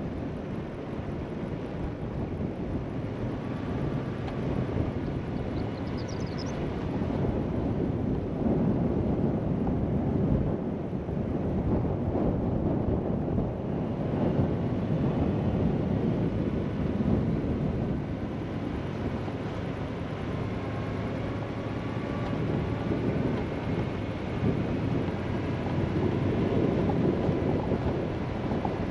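A vehicle driving on a dirt road: a steady low rumble of tyres and engine that grows a little louder partway through.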